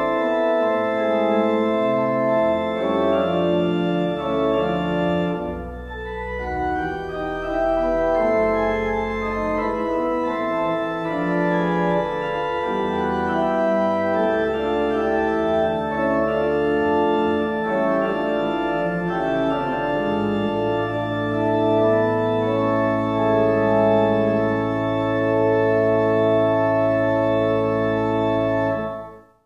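Pipe organ playing sustained chords, with a low pedal note held under the final chord from about two-thirds of the way through. The sound stops abruptly just before the end.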